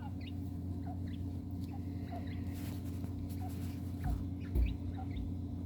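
Pet quail giving short, faint, high peeps, a few each second, over a steady low hum. A few low thumps come near the end.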